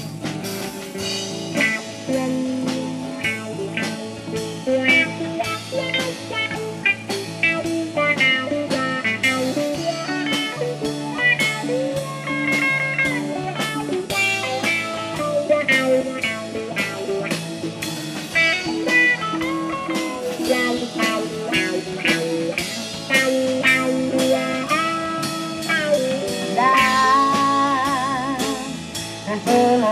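Live blues band playing an instrumental break: an electric lead guitar solos with bent, wavering notes over a steady drum-kit beat, bass and strummed acoustic guitar.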